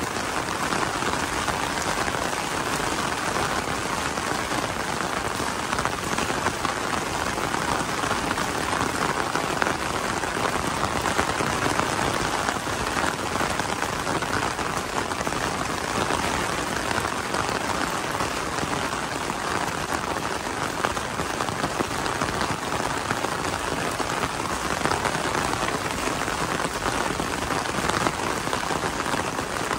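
Steady rain pattering on a fabric umbrella held overhead: a dense, even patter of drops that neither builds nor fades.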